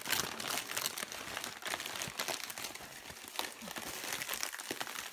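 Gift wrap with silver stripes and a plastic mailer bag being crumpled and pulled open by hand: a dense run of crinkling and crackling with sharp little crackles throughout.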